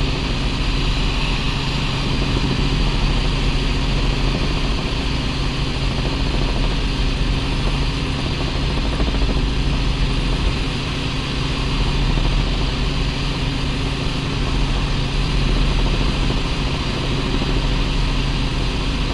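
Cabin noise of a light helicopter in cruise flight: a steady engine and rotor drone with a constant low hum and a hiss above it.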